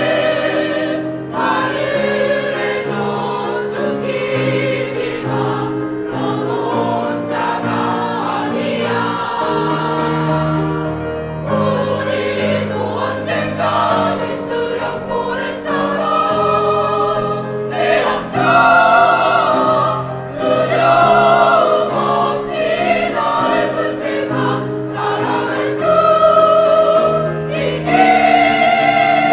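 A choir singing a song over sustained instrumental accompaniment, with the chords changing every second or two.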